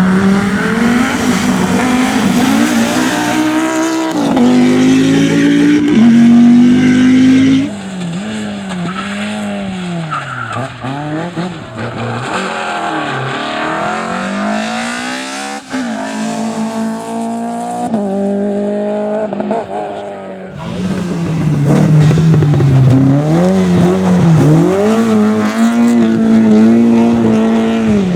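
Rally car engines at full throttle, climbing in pitch through the gears with a drop at each upshift, then lifting off and picking up again through corners. The sound changes abruptly twice, about eight and twenty seconds in, as the footage cuts between cars or passes.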